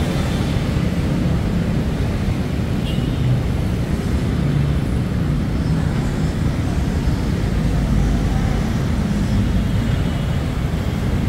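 Steady low rumble of city road traffic, an even din without distinct events.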